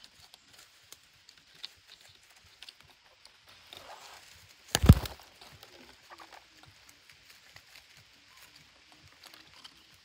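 Parrots clambering on dry tree stumps: light, scattered tapping and scrabbling of claws and beaks on wood, with a rustle and then one loud thump about five seconds in.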